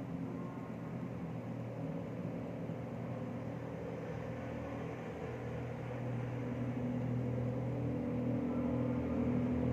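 Low, steady engine-like rumble with a droning hum, slowly growing louder over the second half.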